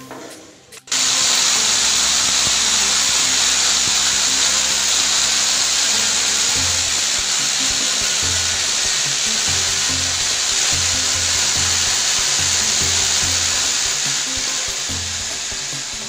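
Corded electric drill boring overhead into the ceiling: a steady high whir starts suddenly about a second in and eases off near the end, with a lower throb coming and going from about halfway.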